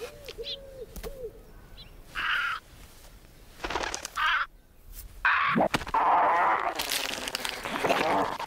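An owl hoots a few times, then a cat snarls and screeches in harsh, raspy bursts that grow longer and louder, the loudest stretch filling the last three seconds.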